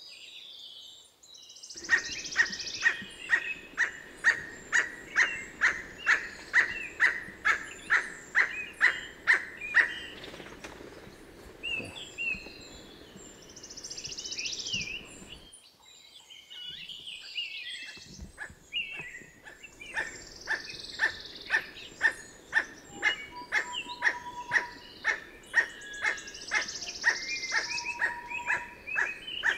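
Emerald toucanet calling: a long series of dry, barking notes at about two a second. Fainter high chirps from other birds sit behind it. The calling breaks off for several seconds midway, then starts again.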